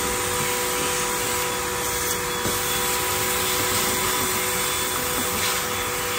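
Vacuum cleaner running steadily, a constant rush of air with an even motor hum, as its hose wand is worked over the floor.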